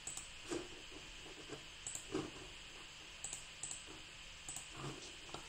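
Faint computer mouse clicks, several short clicks scattered irregularly over a few seconds, as the chart's timeframe is picked from a dropdown menu.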